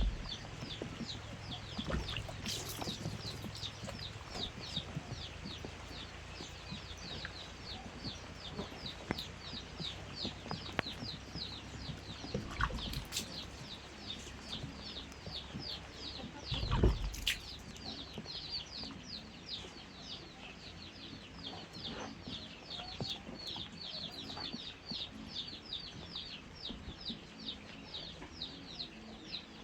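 Chickens calling: a continuous stream of many short, high, falling peeps, several a second, with a couple of low thumps partway through.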